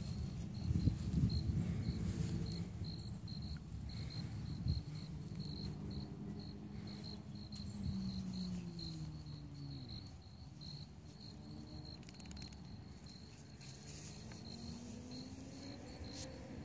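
A cricket chirping steadily, short high chirps at about two a second. Under it a low rumble, loudest in the first few seconds, and a low hum that slides down in pitch and back up around the middle.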